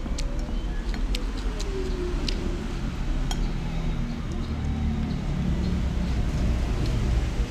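Wooden chopsticks clicking against a ceramic plate, many quick taps over the first three seconds or so, then a few more. Under them runs a steady low rumble.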